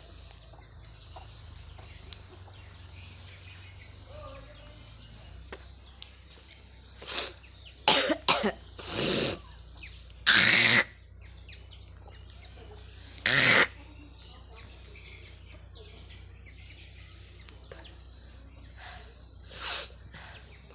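A person coughing on purpose for a coughing challenge: about seven separate coughs with pauses between them, starting about a third of the way in. Some come in quick pairs, and the longest ones fall near the middle.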